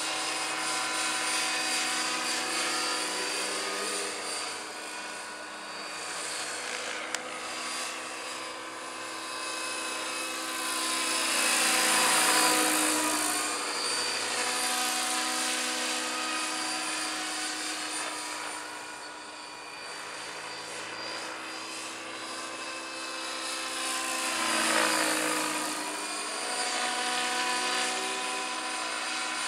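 Radio-controlled Bell LongRanger scale helicopter on T-Rex 600 mechanics in flight, a steady whine of rotor and drive. It swells loudest twice as the model passes close, about twelve and twenty-five seconds in, the pitch dropping as it goes by.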